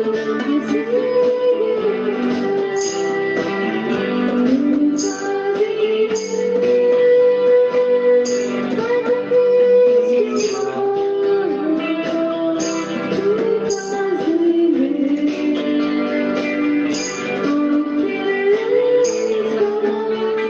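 Music with guitar: a smoothly gliding melody over sustained chord tones, with a light high accent about once a second.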